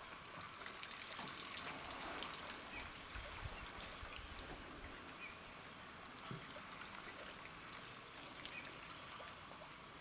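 Faint trickling and dripping of water as African elephants drink, their trunks dipping and splashing in the shallows of a waterhole.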